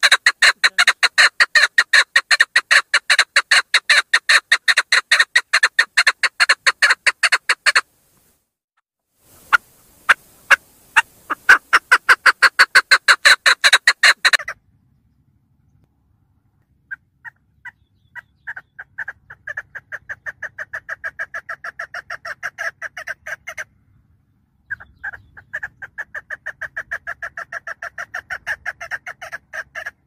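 Female chukar partridge calling: long runs of fast, evenly repeated sharp notes, about five a second, broken by short pauses, with the bouts in the second half quieter. It is the hen's call, used to draw male chukars in for hunting.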